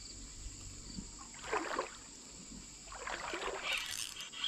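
Creek water splashing and sloshing, twice: once briefly about a second and a half in, then longer near the end.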